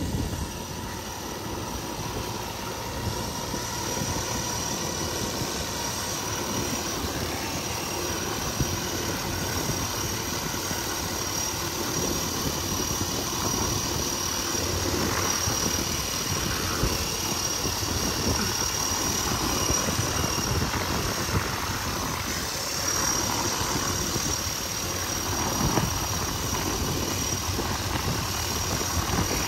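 Steady drone of aircraft engines, with a thin high whine held through most of it.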